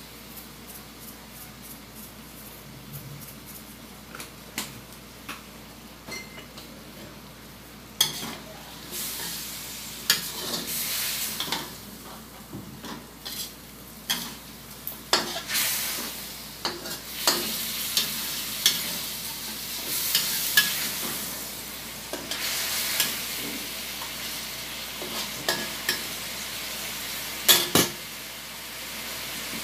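Chicken pieces sizzling in a metal wok while a metal spatula stirs them, scraping and clanking against the pan. The sizzle is faint at first and grows louder about a quarter of the way in, with frequent sharp clanks from then on.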